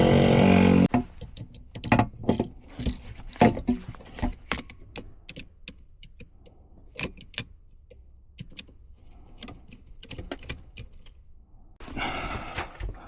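A steady motor hum cuts off abruptly about a second in. It is followed by scattered sharp clicks and knocks of handling, with jangling keys.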